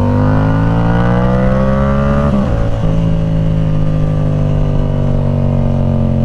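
Yamaha R7's 689 cc parallel-twin engine through a Yoshimura AT2 full exhaust system, under way: the revs climb for about two seconds as it accelerates, break off briefly, then the engine runs on with its pitch slowly falling.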